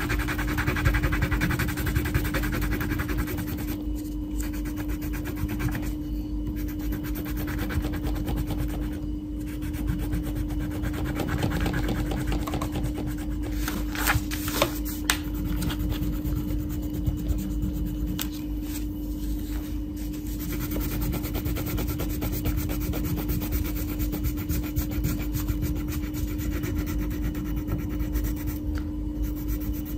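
Wax crayon scribbling back and forth on a colouring-book page, a steady scratchy rubbing with a few sharper strokes about halfway through, over a constant low hum.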